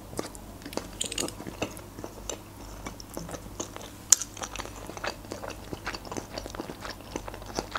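A person chewing a mouthful of sliced meat close to the microphone: soft wet mouth clicks and smacks at an irregular pace, with one sharper click about four seconds in.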